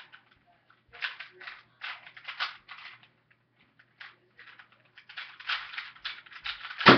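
Plastic Rubik's cubes being turned rapidly in a speedsolve: quick runs of clicking and clacking layer turns with brief pauses between, and one sharp knock near the end.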